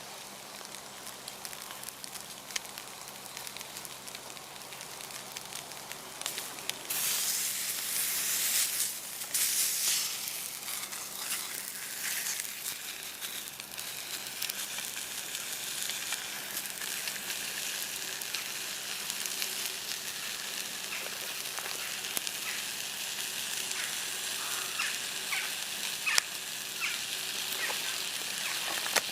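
Steak sizzling in a pan over a campfire, a steady frying hiss with scattered crackles and pops. The sizzle swells loudly for a few seconds about seven seconds in.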